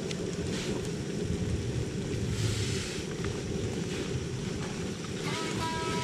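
Canister camping gas stove burning under a pot with a steady low roar, with a few faint clicks of a knife cutting mushrooms.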